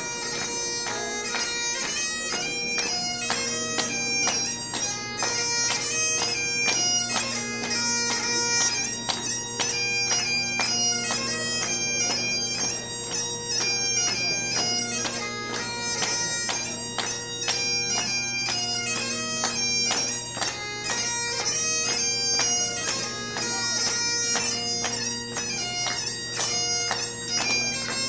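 Pipe band of Great Highland bagpipes playing a lively tune, the chanters' melody moving over steady drones; a lower drone tone comes in about three seconds in.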